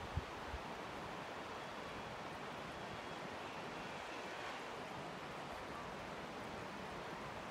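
Steady rushing of a fast mountain river, with a brief low thump right at the start.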